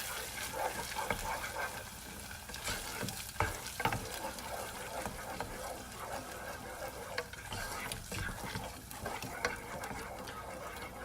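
A utensil stirring ketchup into sautéed onion and garlic in a non-stick pan, over a steady low sizzle, with frequent small scrapes and taps against the pan.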